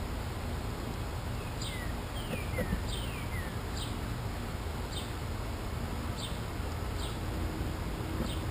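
Birds calling outdoors: short, high chirps that drop in pitch, about one a second, with a few longer downward-sliding notes between two and three and a half seconds in, over a steady low rumble.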